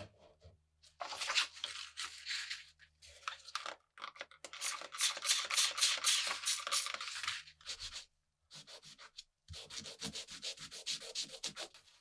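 Hand sanding with abrasive paper: quick back-and-forth rubbing strokes, about five a second, in two runs with a short pause between and a few scattered scrapes before them.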